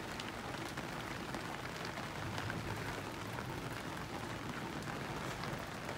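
Heavy rain falling steadily on the canvas of a wigwam, heard from inside.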